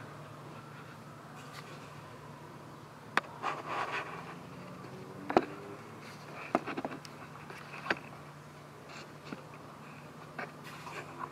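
Quiet background ambience: a steady low hum, with about half a dozen sharp clicks and a few short rustles scattered through it.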